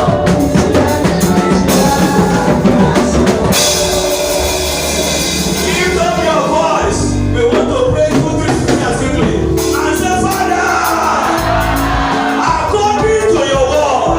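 Live worship music: voices singing over a band with a drum kit.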